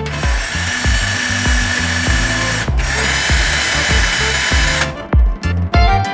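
Small electric drill running in two stretches with a steady high whine, stopping briefly about two and a half seconds in and for good near the end, over background music with a steady beat.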